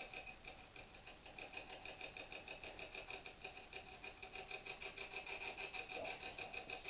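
Spirit box sweeping through radio frequencies, giving a steady, rapid choppy static that pulses several times a second.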